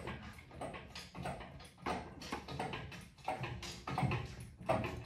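Hydraulic engine hoist being pumped by hand, its jack handle and linkage clunking in a loose rhythm of about two strokes a second as the boom is raised.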